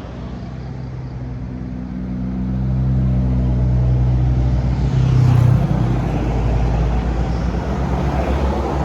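A bus engine passes close by with a low hum that grows louder to a peak about five seconds in, then eases off slightly.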